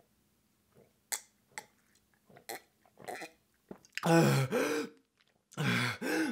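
A man swallowing water from a glass in a few quiet gulps, then letting out two loud burps about a second long each, with a second's gap between them.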